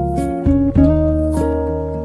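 Instrumental background music led by guitar, a melody of held notes stepping between pitches.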